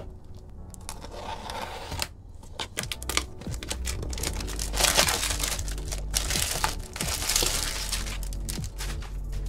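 Packaging being opened: crinkling and tearing of wrapping, with many small clicks and handling noises, loudest around the middle, over background music.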